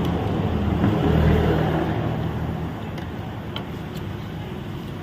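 Low, steady rumble of a passing motor vehicle, swelling about a second in and then easing off, with a couple of faint clicks.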